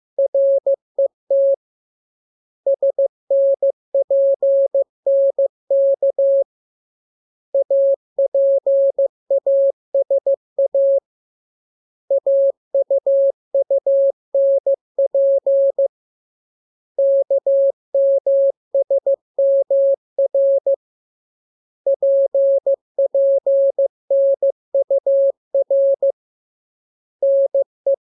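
Morse code sent as a steady mid-pitched tone keyed into dots and dashes, coming in groups of about four seconds with pauses of about a second between them. It is a practice radiogram made up of the letters K, M, U, R, E, S, N, A, P and T.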